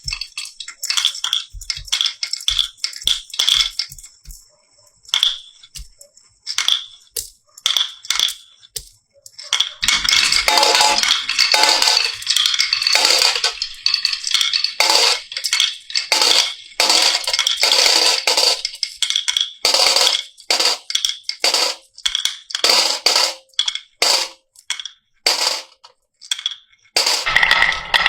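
Marbles clicking and rattling along a marble run: scattered clicks at first, then a dense clatter from about ten seconds in.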